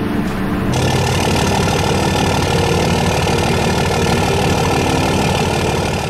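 Cummins diesel truck engine running at a steady speed with an even, rapid firing pulse.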